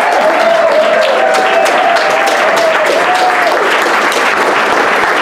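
Audience applauding steadily, with voices heard over the clapping during the first few seconds.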